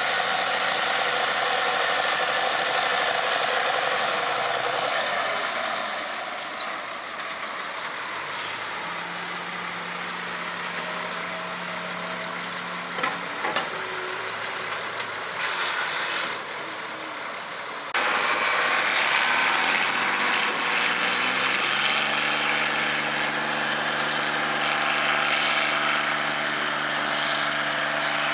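Farm-stock tractor diesel engines working hard while dragging a weight-transfer sled. A Case tractor pulls first, and its engine note drops off after a few seconds. About two-thirds of the way in there is a sudden change to a John Deere, whose engine rises in pitch and then holds a steady, loud pull.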